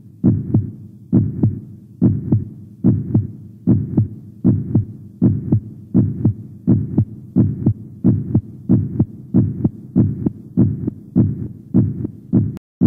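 A heartbeat sound, steady paired lub-dub thumps about twice a second. Near the end there is a click and a brief dropout.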